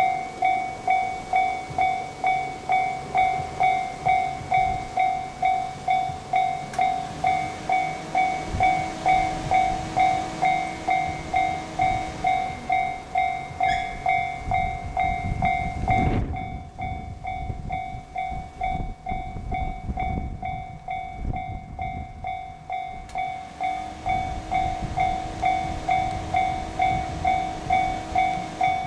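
Japanese level-crossing warning bell ringing, a steady electronic ding about twice a second, while a diesel train rumbles over the crossing. The train is loudest a little past halfway, then fades while the bell keeps ringing.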